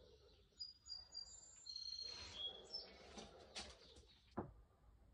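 Faint bird chirps, a few short high whistled notes, with a few light knocks; the loudest knock comes near the end.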